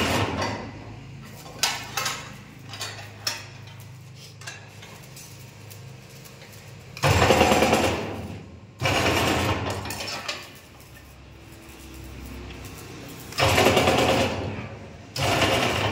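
A TMT rebar ring-making (bar bending) machine at work bending a steel bar into a stirrup ring: a low steady hum, broken by about four loud noisy bursts in the second half as the bending disc turns the bar, with a few sharp metal clicks about two and three seconds in.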